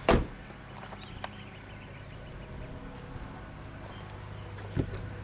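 A car's rear passenger door is shut with a loud thump, followed about a second later by a single sharp click. Faint short chirps sound over a low steady hum, and a softer thud comes near the end.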